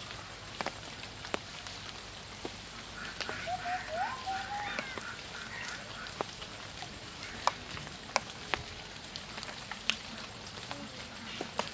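Light rain falling on a pond and the surrounding leaves: a steady patter with scattered sharp drip clicks. About three to five seconds in, an animal calls a few short rising notes.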